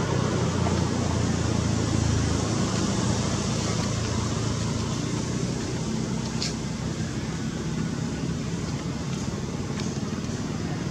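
Steady background rumble with a hiss over it, and a single brief high click about six and a half seconds in.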